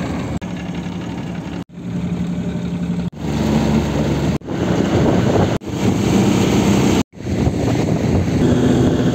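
Outboard motor of a small fishing boat running steadily on the river, with wind on the microphone; the sound cuts off abruptly several times and resumes.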